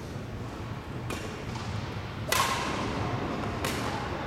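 Badminton rackets striking a shuttlecock in a rally: three sharp hits about a second and a quarter apart, the first faint and the middle one the loudest, each echoing in a gymnasium.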